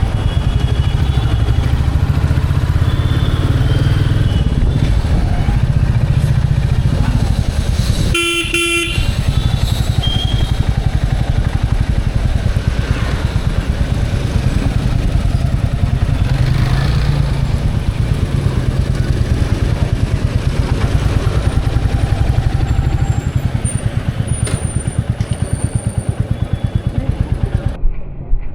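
Royal Enfield Bullet Standard 350's single-cylinder engine running under way, with a steady low thump and road and wind noise. A vehicle horn sounds briefly about eight seconds in. Near the end the road noise drops away and the engine settles to separate, slow idle beats.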